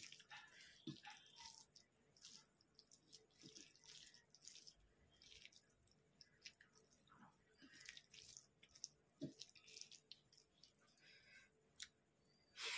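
Faint, wet crackling and squishing of a bare hand mixing rice with chicken curry and potatoes on a metal plate, in scattered small clicks and rustles. A louder burst comes right at the end as a handful reaches the mouth.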